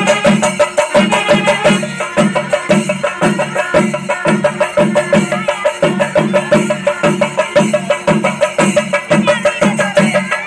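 Kerala temple drum ensemble of chenda drums playing a fast, even rhythm of dense strokes over a deep beat about two to three times a second.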